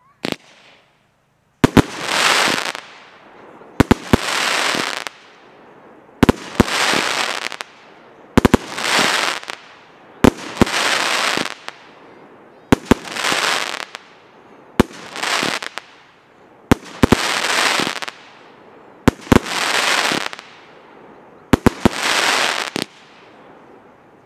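Primed Pyrotechnics Sky Breaker firework cake firing volleys of very loud salutes: each round is a cluster of sharp, echoing bangs followed by about a second of crackling, repeating roughly every two seconds.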